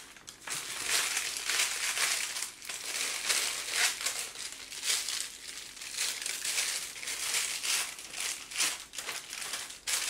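Thin plastic piping bag crinkling and rustling as it is handled, in irregular bursts.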